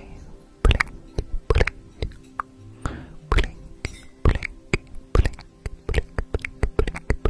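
Crisp, irregular clicks and taps, about one to two a second, from a bristle hair brush worked close to the microphone in a hair-brushing ASMR routine, over a faint steady background tone.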